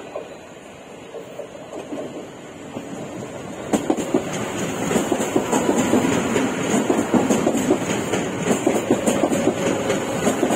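Suburban EMU local train running past close by, its wheels clattering over rail joints in a quick, irregular rhythm. It builds from a low rumble and grows loud about four seconds in as the coaches pass.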